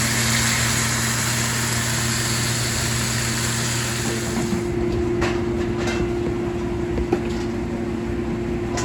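Vehicle noise: a broad rushing sound over a steady low hum that fades about four and a half seconds in, leaving the hum and a steady higher tone.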